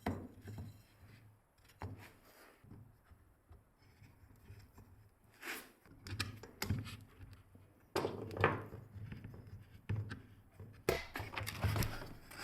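Irregular knocks, clunks and short rustling handling noises, sparse at first and coming thicker and louder over the last few seconds.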